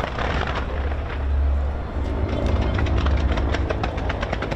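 Fireworks going off: a steady low rumble of booms under rapid sharp crackling pops, which grow denser about halfway through.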